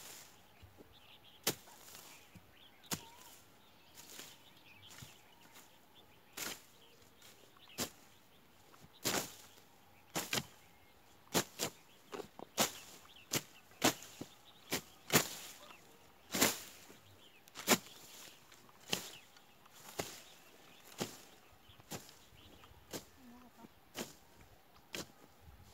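Hand-held blades slashing through dry grass and brush. Short, sharp swishing cuts come irregularly about once a second, thickest and loudest in the middle.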